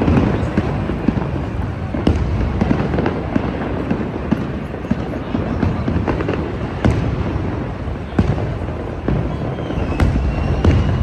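Fireworks going off continuously: a steady low rumble of distant bursts with frequent sharp cracks and bangs over it.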